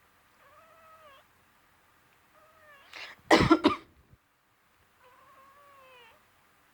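A pet cat meowing three times in reply to its owner's coughing, each meow rising and falling in pitch. A woman's loud burst of coughing comes about three seconds in, between the second and third meows.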